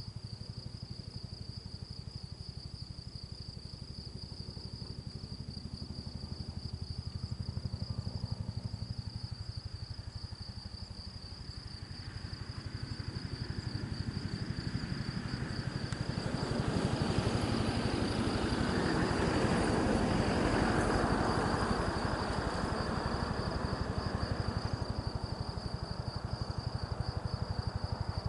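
Bell 212 helicopter with its two-bladed main rotor beating rapidly, growing louder from about halfway through to a peak around two-thirds of the way in, then easing slightly.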